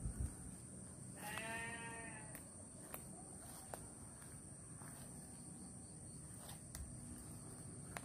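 A goat bleats once, a wavering call lasting about a second, while footsteps crunch and snap through dry leaf litter.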